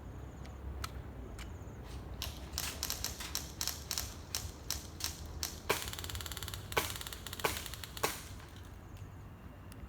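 BB gun firing: a few scattered sharp clicks, then a quick run of shots for about three seconds, and four louder cracks roughly a second apart near the end.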